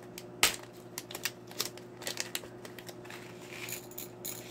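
Scattered light clicks and taps of small nail charms being handled in a small dish, with one sharper click about half a second in. A faint steady hum runs underneath.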